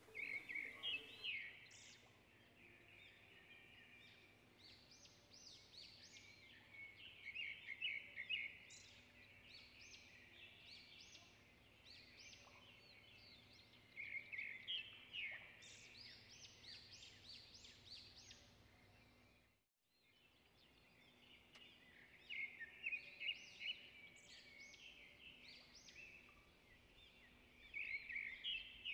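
Faint birdsong: bursts of quick, high chirps and trills in short phrases every few seconds over a low background hum.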